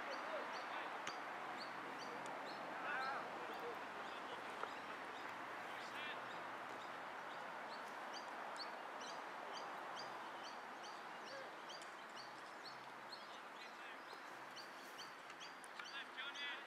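Faint, distant voices of players calling across the pitch, over birds chirping: short high chirps repeating every half second or so, with a louder cluster of calls near the end.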